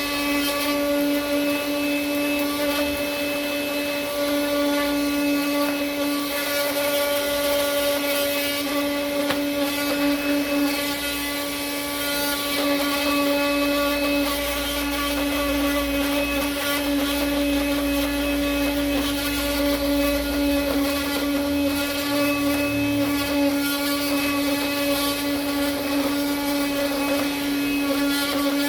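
Small 12 V car vacuum cleaner motor running steadily on a PC ATX power supply: a constant motor whine over a rush of air.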